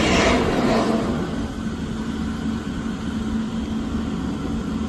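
Vehicle noise: a rushing sound fades out about a second in, leaving a steady low hum and rumble.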